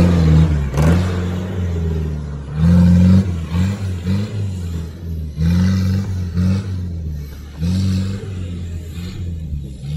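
Toyota 4x4's engine revving up and dropping back again and again, with about four strong surges, as it crawls over rough ground and pulls away.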